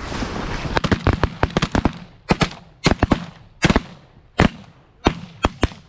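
Shotgun volley from several waterfowl hunters firing at ducks: a quick burst of many overlapping shots in the first two seconds, then single and paired shots coming further apart toward the end.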